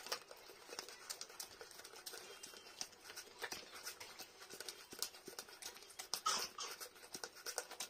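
Bernese Mountain Dog licking drink out of a small plastic Yakult bottle: a run of quick, irregular wet licks and tongue clicks, louder a little past six seconds in.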